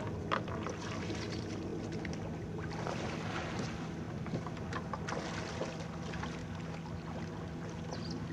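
Scattered small knocks and splashes as a sea-kayak trimaran is handled at the water's edge, over a steady low drone.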